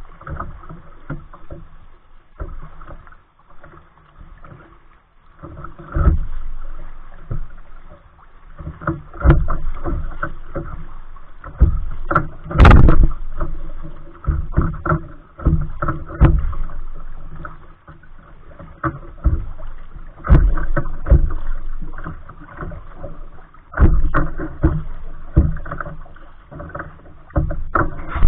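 Kayak being paddled: water splashing and lapping against the hull in uneven surges every second or two, with one sharp knock a little before halfway.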